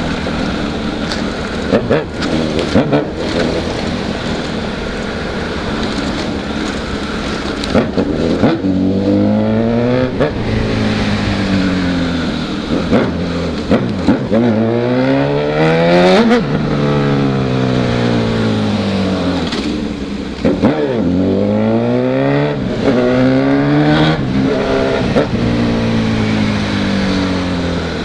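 Honda CB1000 motorcycle's inline-four engine, first running steadily, then revving up and easing off several times as it pulls through the gears.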